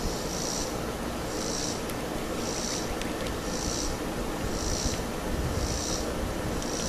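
Steady low rumble of wind buffeting the microphone, with a short, high buzzing call repeating about once a second in the background.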